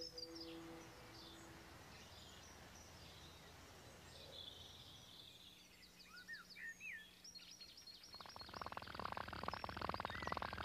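Birds chirping and twittering over a faint outdoor hiss, in the countryside ambience of a children's show. About eight seconds in, a louder, fast buzzing rattle starts.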